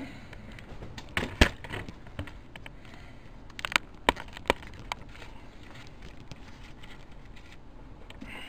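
Scattered sharp clicks and knocks of handling in the workshop: one loud knock about a second and a half in and a cluster of clicks around four seconds, over a faint steady low hum.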